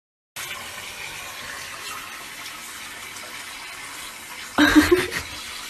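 Water running steadily from a bathroom sink tap, a continuous even hiss. A brief louder sound breaks in about three-quarters of the way through.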